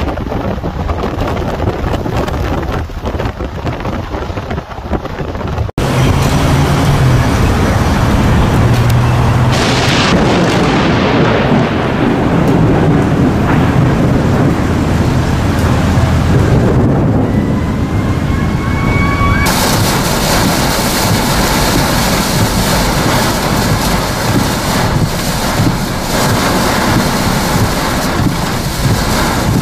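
Severe thunderstorm: wind and a long roll of thunder that swells about ten seconds in and slowly fades, then a steady hiss of heavy, wind-driven rain in the last third.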